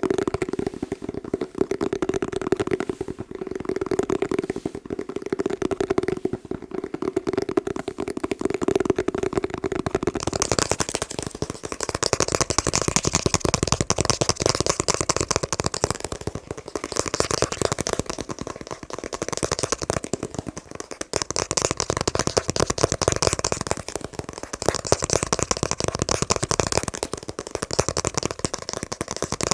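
Rapid fingertip tapping on objects, a continuous fast patter. For the first ten seconds or so it taps an object with a low, resonant tone; after that it moves to one with a brighter, crisper, higher sound.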